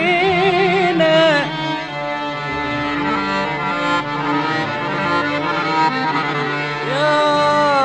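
Arabic orchestral ensemble playing an instrumental passage of a Middle Eastern song: a held, wavering melody note that stops about a second and a half in, a busier ensemble phrase, then another held note near the end.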